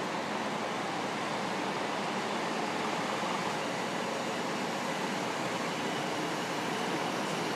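Steady running hum and hiss of a passenger train standing at the platform, with no distinct events.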